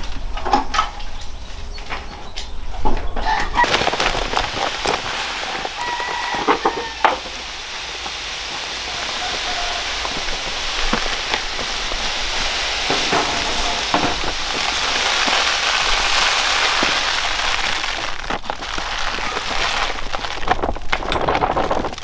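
A chicken gives a short call about six seconds in, against a steady hiss and scattered knocks and taps.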